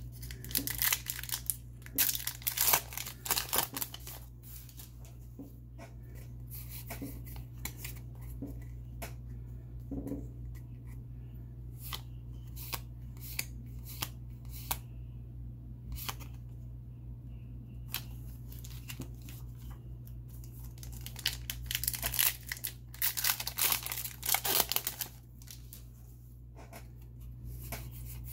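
Foil Yu-Gi-Oh booster-pack wrapper being torn open and crinkled by hand, dense crackling for the first few seconds. Then scattered light clicks and taps as the trading cards are handled and slid against each other, with another spell of foil crinkling near the end, over a steady low hum.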